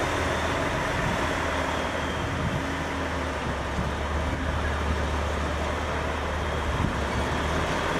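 A motor vehicle's engine running steadily, with a deep hum under an even wash of road-like noise.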